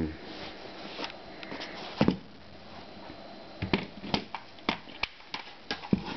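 Handling noise from an AR-15 lower receiver: a series of sharp, separate clicks and knocks of metal parts being worked, about eight in all, the loudest about two seconds in and near the end.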